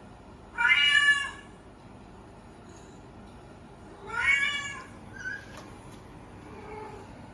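Domestic cat meowing twice, each meow under a second long and a few seconds apart.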